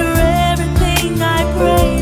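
A song plays as background music, with sustained melodic notes over a steady beat.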